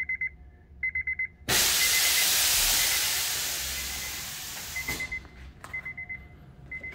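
Air Lift Performance air suspension dumping air: a loud hiss of air venting from the bags through the manifold. It starts suddenly about a second and a half in and dies away over about three seconds while the car drops. Rapid electronic beeping sounds before and after it.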